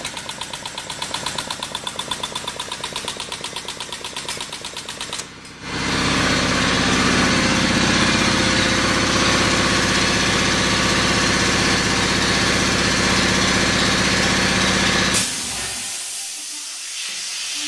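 Hydraulic pump driving an 8-ton ram that pushes a keyway broach through a steel part: rapid, even pulsing strokes, then, about five seconds in, a louder steady run with a low hum for about ten seconds that cuts off near the end.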